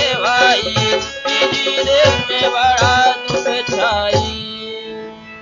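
Instrumental ending of a Fiji Hindi folk song: a melody line over hand-drum strokes. The drums stop about four seconds in, and a last held note fades out.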